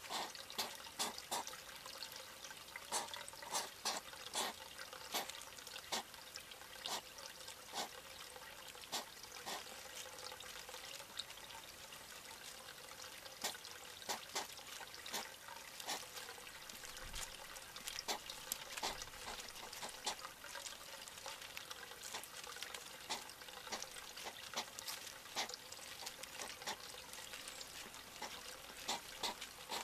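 A hedgehog crunching dry food pellets: sharp, irregular clicks coming in clusters over a steady trickle of water.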